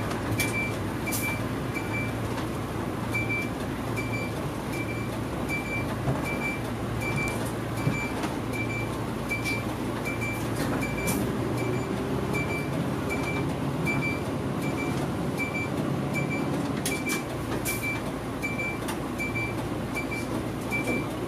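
Interior of an old Mitsubishi Fuso Aerostar bus moving slowly: a steady engine and drivetrain rumble with a low hum. Over it a short high beep repeats about twice a second, and there are a few rattling clicks.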